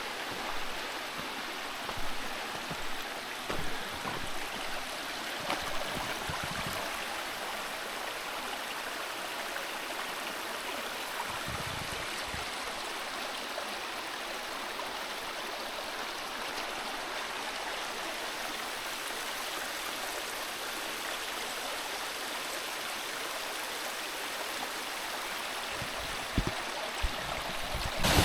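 Mountain creek rushing steadily over rocks, with a few soft thumps in the first seconds and again near the end.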